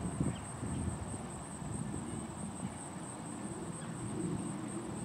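Insects in the field giving a steady high-pitched buzzing trill, with irregular low thumps and rumble underneath.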